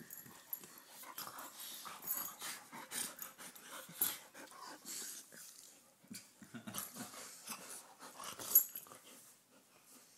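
Dogs play-wrestling: irregular scuffling and breathy noises in uneven bursts, loudest in one sharp burst about eight and a half seconds in.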